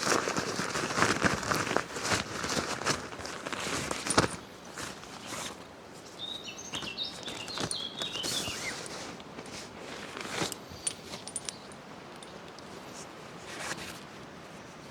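Footsteps and rustling on woodland ground with crinkling gear for the first four seconds or so, then a songbird's short burst of chirps. Scattered quieter rustles and a knock follow.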